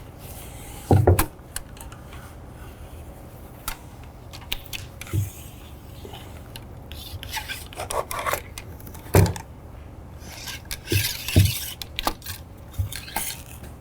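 A dry cleaning patch on a rod is pushed through the bore of a Savage 6.5 Creedmoor rifle barrel, rubbing and scraping along it, with scattered sharp knocks and clicks from the rod and rifle being handled.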